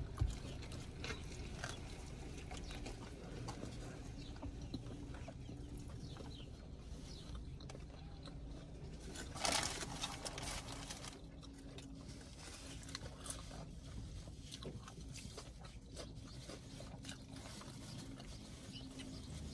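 Quiet eating sounds: soft chewing and small mouth clicks over a low steady hum, with one brief louder crackle about nine and a half seconds in.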